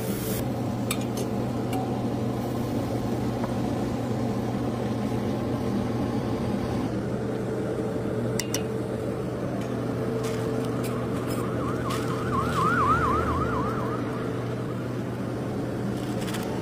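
Steady background hum with a few light metal clinks of a ladle and tumbler against a steel mixing bowl. About twelve seconds in, a rapidly warbling siren sounds for about two seconds.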